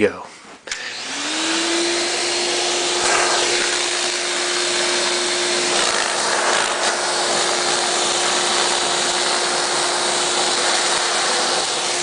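Vacuum cleaner switched on just under a second in, its motor spinning up to a steady pitch within about a second and then running evenly as its hose nozzle sucks up a strand of loose magnetic tape from a carpet.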